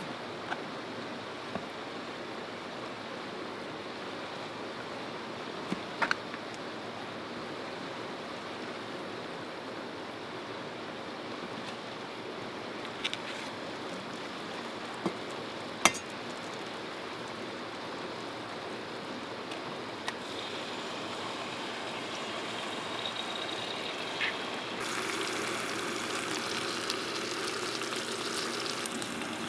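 Steady rushing of the nearby river, broken by a few sharp clicks and taps of utensils. About twenty-five seconds in, a frying egg starts sizzling in a hot stainless steel frying pan.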